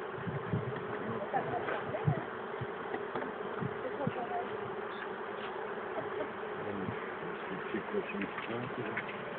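A honeybee colony buzzing in a steady, dense hum while it is being moved from a wall cavity into a hive.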